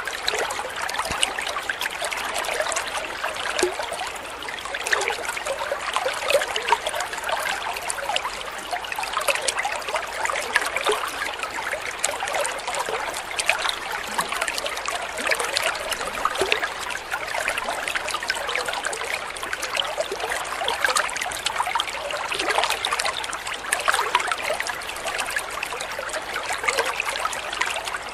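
Thin stream of water falling from a spout into a koi pond, making a steady, light splashing trickle.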